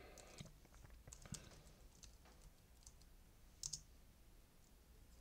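Faint, scattered computer keyboard keystrokes and clicks as a word is typed, with a few slightly louder clicks about a second in and again around three and a half seconds.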